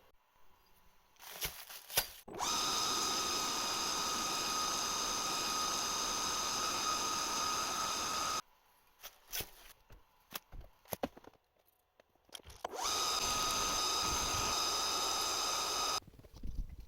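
Small metal lathe running with a steady whine in two stretches, about six seconds and then about three seconds long, while drilling and tapping the ends of aluminium shafts. Between and around the runs there are clicks and knocks from handling the machine.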